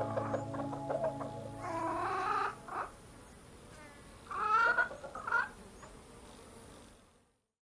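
Hens clucking, with a few short drawn-out calls, the loudest about four and a half seconds in; the sound fades out to silence near the end.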